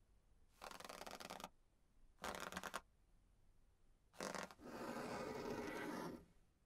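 Pen nib scratching across paper in four strokes: two of about a second and half a second, a short one, then the longest of about a second and a half, with near silence between them.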